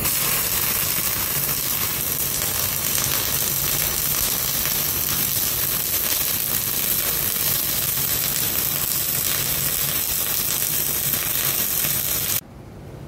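Flux-cored arc welding a bead on mild steel plate with .052 flux-core wire at 25 volts: a steady hiss of the arc that starts at once and cuts off sharply about twelve seconds in.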